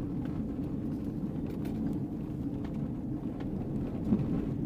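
Car driving on a gravel road, heard from inside the cabin: a steady low rumble of engine and tyres on gravel, with scattered light ticks and a short bump about four seconds in.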